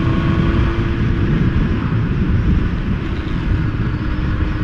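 Motorcycle engine running at a steady note under heavy low wind buffeting, picked up by a microphone inside the rider's helmet while riding.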